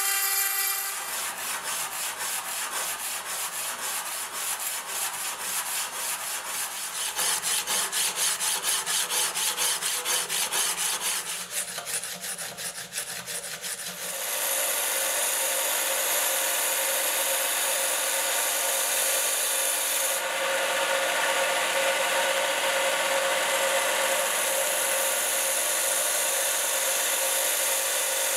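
Rapid back-and-forth rubbing strokes worked by hand on the steel knife blade, easing off and getting quieter just before halfway. Then a small belt grinder runs steadily with a hum and hiss as the blade is ground on its belt.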